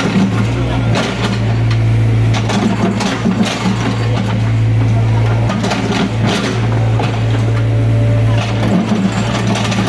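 Excavator's diesel engine running steadily with a deep, even hum, with a few short knocks over it.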